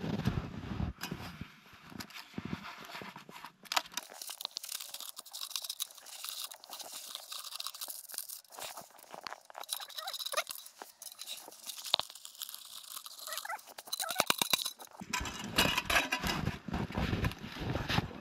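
Snow crunching and scraping as a Muffpot exhaust-cooker container is scrubbed clean of cooking grease with handfuls of snow, in irregular crunches and scrapes that grow louder near the end.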